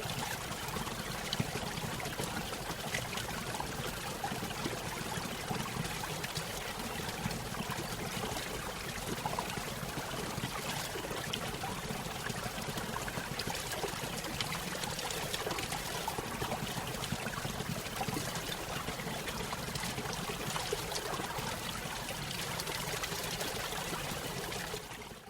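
Running water trickling and pouring steadily, then fading out at the very end.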